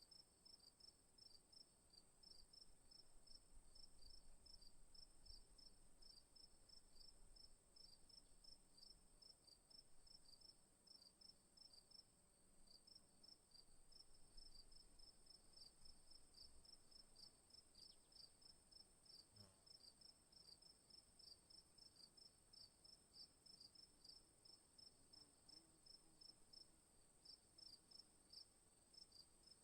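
Faint night insect chorus: crickets chirping in a steady, evenly repeated rhythm, over a continuous high-pitched insect trill.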